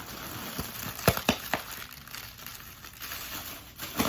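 Packing material crinkling and rustling as a shipping box is unpacked, with a few sharp snaps about a second in and another near the end.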